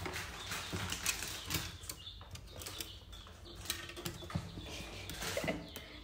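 Indian ringneck parrot moving about right at the microphone: irregular taps, clicks and rustles from its beak, feet and feathers.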